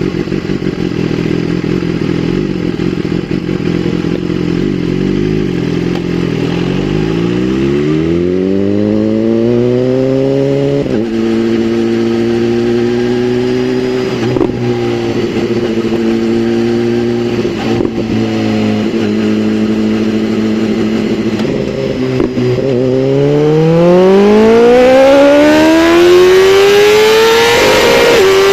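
2017 BMW S1000RR inline-four engine running at low revs, then rising smoothly over a few seconds and holding steady, then climbing again towards the end.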